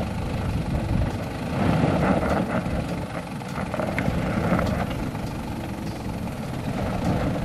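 Toyota Land Cruiser Prado 90 Series engine running low and steady as the 4x4 crawls slowly over a rutted dirt trail, with a few light clicks about halfway through.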